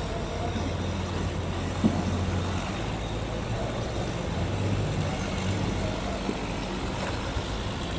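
A barge's inboard engine running steadily with a low hum, and a single brief knock about two seconds in.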